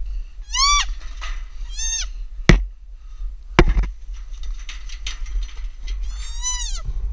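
Spotted fawn bleating in distress while stuck between wrought iron fence bars: three high, arching bleats, the last one longer. Two sharp knocks come in between.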